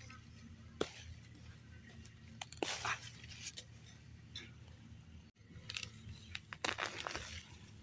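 Irregular crunching and rustling with scattered sharp clicks, as plants, stems and soil are handled during a potato and tomato harvest; the sound drops out for an instant about two thirds of the way through.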